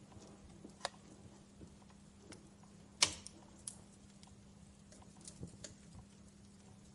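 Wood fire crackling in a fireplace: scattered snaps and pops, the loudest a sharp pop about three seconds in, over a faint hiss and a steady low hum.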